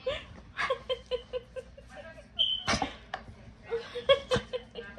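A person laughing in short, rhythmic bursts, with a couple of sharp taps in between.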